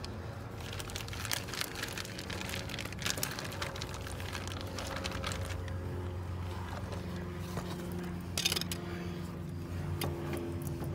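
A plastic bag crinkling and parts being handled in a run of short crackles, over a steady low motor hum.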